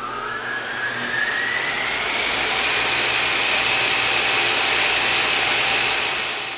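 A machine spinning up: its whine rises in pitch over the first few seconds, then holds as a steady high whine over a loud rushing noise, and cuts off at the end.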